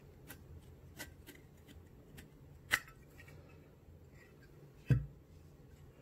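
Small metal clicks and handling noises from a Zippo lighter's case and chrome insert as the insert is worked out of the case, with one sharp click near three seconds in and a heavier knock just before the end.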